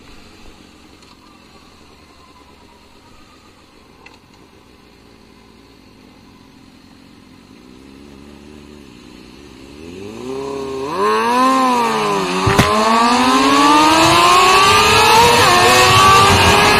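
Sport motorcycle engine accelerating hard. It is quiet at first, then revs up from about halfway through, its pitch climbing, dropping at a gear change with a short click a couple of seconds later, and climbing steadily again.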